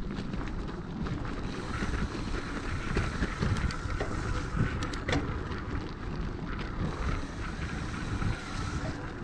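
Mountain bike riding down a dirt singletrack: a rough, jittery rumble from the tyres over the trail, with wind buffeting the microphone and scattered sharp clicks and knocks from the bike rattling over bumps.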